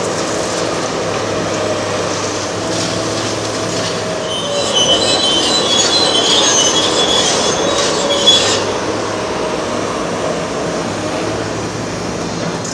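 Caterpillar 365B demolition excavator running at work, its diesel engine and hydraulics giving a steady low drone. From about four and a half to eight and a half seconds in, high-pitched metallic squealing rides over the drone, with a sharp knock near its end.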